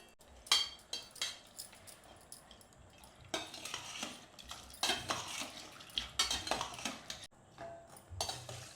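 Kitchen utensils clinking and knocking against pots and dishes, with a spoon stirring and scraping in a vessel, in a series of quick clicks and longer scrapes.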